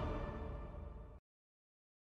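Music fading out, then cutting off abruptly to dead silence a little over a second in.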